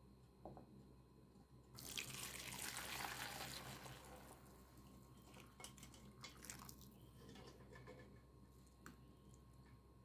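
Water from a kitchen tap running and splashing. It starts suddenly about two seconds in, is loudest for the next couple of seconds, then goes on softer with small splashes and knocks until near the end.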